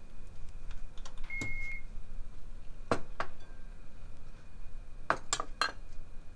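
A short electronic beep, held about half a second, from an induction cooktop's control panel, among several sharp taps and clinks of a utensil against a frying pan, three of them close together near the end. A faint steady high tone runs underneath.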